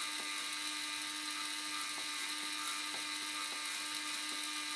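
LEGO Technic Powered Up motor running steadily with nobody touching the joystick, giving a constant hum and a high whine. The app's motor control has stuck on, a bug in the Android Powered Up app.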